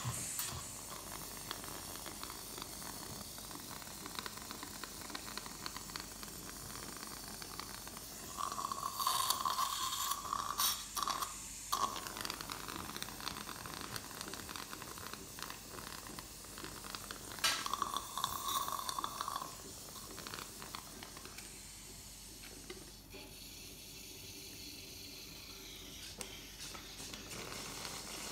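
Dental saliva ejector suction hissing steadily, with two spells of louder gurgling as it draws up fluid, about nine and seventeen seconds in.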